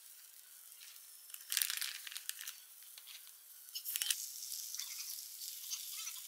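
Takoyaki batter sizzling faintly in a hot electric takoyaki plate. Short crinkly crackles come about a second and a half in and again around four seconds, as chopped green onion and toppings are sprinkled into the batter.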